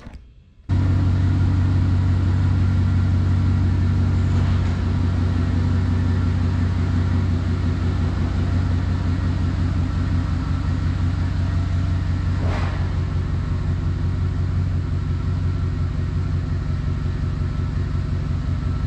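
Lifted Chevrolet truck's engine running with a steady low rumble as it is driven out of the shop. The sound starts abruptly under a second in.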